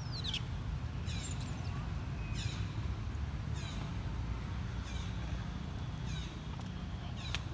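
An animal calling over and over: short, high-pitched calls that slide downward, about one a second, over a steady low rumble.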